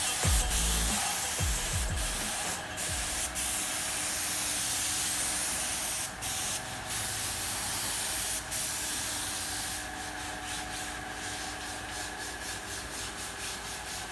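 Compressed-air paint spray gun spraying: a steady hiss that stops briefly a few times as the trigger is let go, then flutters quickly near the end.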